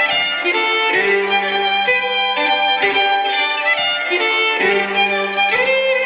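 Solo fiddle playing a Scottish fiddle tune with vigorous bowing, the melody moving in quick notes over a low drone string sounded as a double stop, which breaks off briefly about once a second.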